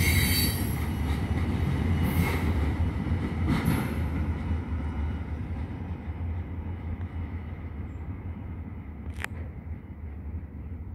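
Freight train cars rolling away on the rails, with a rumble that steadily fades as they recede. Brief high wheel squeals come in the first few seconds. A single short, sharp sound comes about nine seconds in.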